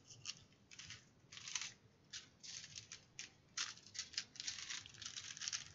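Small plastic bags of diamond-painting drills crinkling as they are handled and sorted, in faint, short, irregular bursts.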